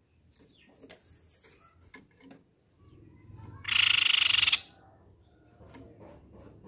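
Crescent-chested babbler (tepus pipi perak) giving one loud, rapid rattling trill of about a second, near the middle. Before it come a thin high whistled note and a few soft clicks.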